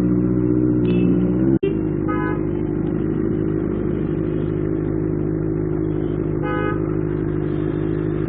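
Benelli TNT 600i's inline-four engine running steadily while riding in traffic. Car horns honk briefly twice, about two seconds in and again past six seconds.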